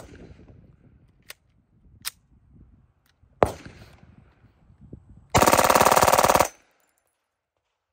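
A few sharp clicks and one loud clack of the pistol being handled, then one fully automatic burst of about a second from a select-fire Glock 19 pistol fitted with Radian Weapons Afterburner and Ramjet, the shots so fast they run together before stopping abruptly.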